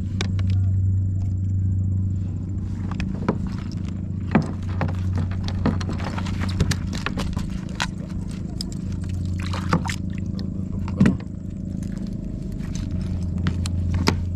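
Cast net being hauled in by hand on a kayak: scattered knocks and clacks as the net and its weights and floats come aboard, over a steady low hum.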